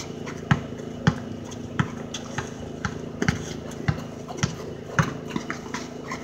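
Basketball being dribbled on a concrete driveway: irregular thumps, about two a second.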